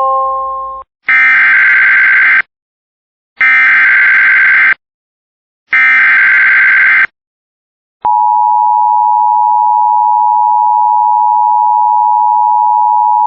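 Emergency Alert System header: three short bursts of warbling digital data tones (the SAME header), each about a second long with about a second's pause between. About 8 s in, the steady two-tone EAS attention signal starts and keeps going, announcing an alert that here is a severe thunderstorm warning.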